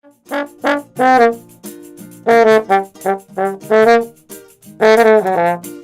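Trombone playing a melody of short, separate notes with brief pauses between them.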